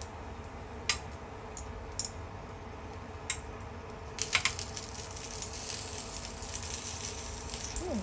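Sausages sizzling on a non-stick grill pan, with metal tongs clicking against the pan a few times as they are turned. About halfway through the sizzle turns louder and more crackly.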